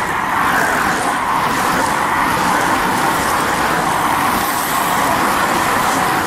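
A line of racing bicycles passing close by, making a steady rush of tyres on tarmac and whirring drivetrains.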